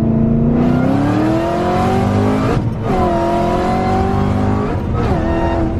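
2020 Shelby GT500's supercharged 5.2-litre V8 under hard acceleration. Revs climb in second gear, break for a quick upshift about two and a half seconds in, climb again, then fall away as the throttle is lifted near the end.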